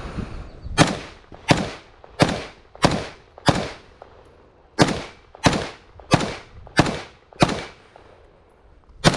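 Rifle shots fired at a steady pace of about one every two-thirds of a second: a string of five, a short pause, five more, then a single shot near the end. Each shot has a short echoing tail.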